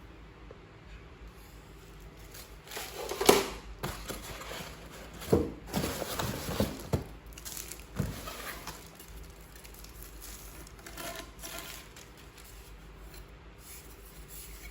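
Plastic packaging crinkling and rustling as vacuum parts are handled, with a few knocks and clicks; the loudest knock comes about three seconds in.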